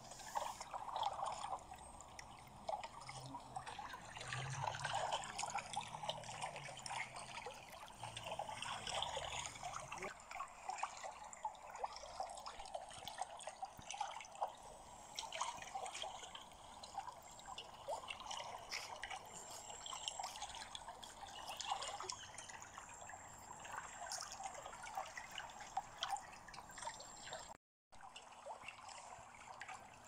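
Swimming pool water lapping and trickling, with many small drips and splashes. The sound cuts out for a moment near the end.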